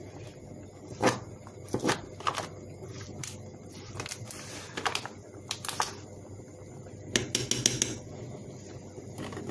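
Spoon knocking and clinking against a steel stockpot as raw minced meat is worked into a boiling stew, over a steady bubbling. The knocks come irregularly, with a quick rattle of them late on.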